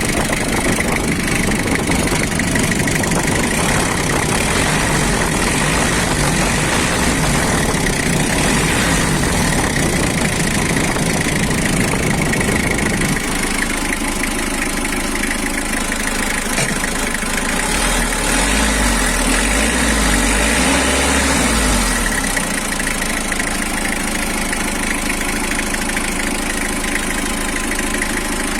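Mitsubishi L300 minibus engine idling steadily. About halfway through its deep low rumble drops, with a short deeper rumble coming in a few seconds later.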